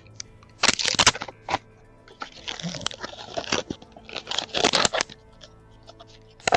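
Loud crunching and scraping right at a doorbell camera's microphone in several rough bursts over a few seconds, as the camera is handled in an attempt to remove it. Quiet background music plays underneath.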